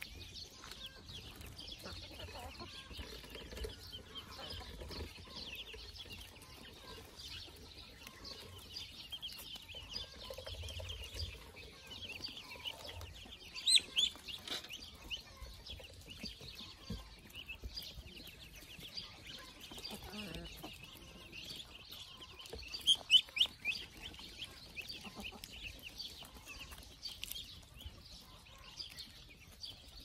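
A flock of ducklings peeping continuously, with chickens clucking among them. Two short bursts of louder calls stand out, about halfway through and again about three-quarters of the way.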